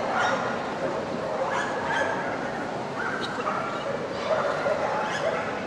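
Dogs yipping and barking in short, repeated calls over a steady background hubbub.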